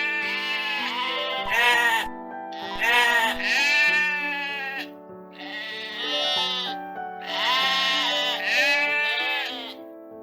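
Sheep bleating again and again, about seven quavering calls, over background music with long held notes.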